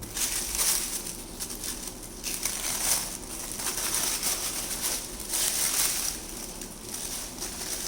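Crinkling and rustling of folded packaging wrap being handled and unfolded from around a new keyboard, in uneven surges.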